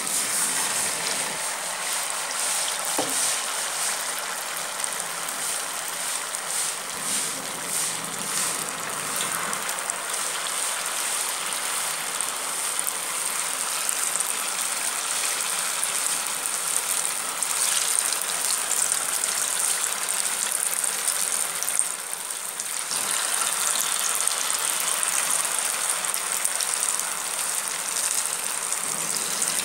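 Batter-coated susiyam balls deep-frying in hot oil: a steady sizzle with some crackling.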